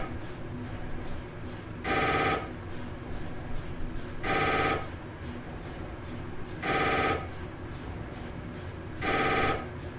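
Telephone ringtone: a short trilling ring of about half a second, repeating every two and a half seconds or so, four times.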